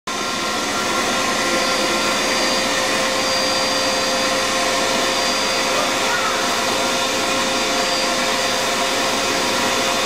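Vacuum cleaner running steadily on its lowest setting, its hose nozzle drawn through a long-haired cat's fur.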